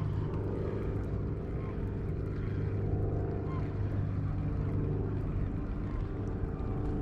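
Boat engine running steadily, a low droning hum.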